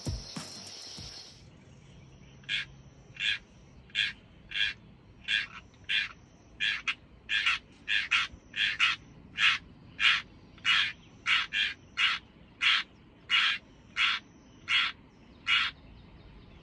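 A bird calling in a long, even series of about twenty short calls, roughly one every two-thirds of a second. The hunter takes the calling as a sign that rain is coming. The tail of background music ends about a second in.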